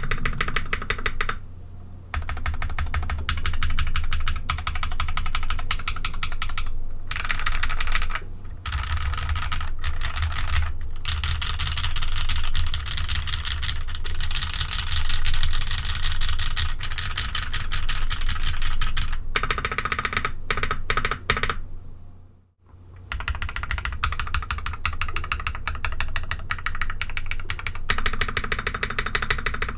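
Mechanical keyboard fitted with ABS keycaps being typed on quickly, a dense run of clacky keystrokes. The typing stops in a few short pauses and breaks off almost to silence for about a second past the middle.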